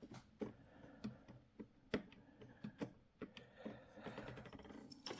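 Faint, irregular clicks and taps from hands and a small screwdriver working on the opened joystick gimbal of a Graupner MC-32 radio transmitter, adjusting the screw that sets the throttle stick's spring tension.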